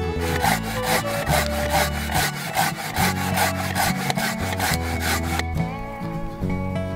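Hand saw cutting through a log with quick, even back-and-forth strokes that stop about five and a half seconds in.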